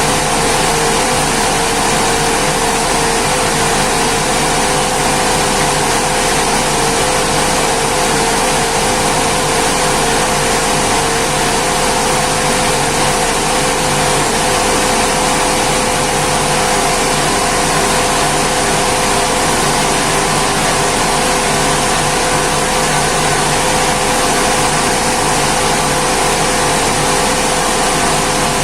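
Rice milling machine running steadily and loudly: an even mechanical noise with a constant hum, unchanging throughout.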